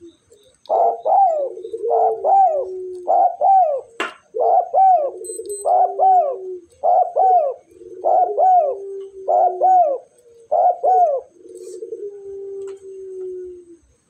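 A caged spotted dove cooing over and over: about nine short two-part coos in quick succession, each rising and falling and then trailing into a low hum. A longer low coo closes the series. A single sharp click comes about four seconds in.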